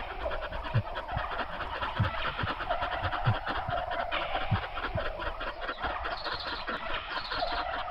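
Busy bird calls with a repeated note, over a slow, regular low thump about every second and a quarter.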